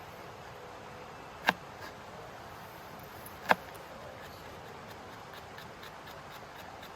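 Two sharp clicks about two seconds apart, over a steady faint hiss.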